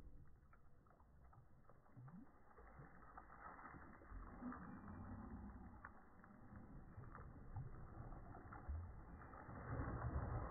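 Faint sloshing and splashing of shallow pond water as a person wades and handles a wet nylon cast net, getting louder near the end as the net is swung out for the throw.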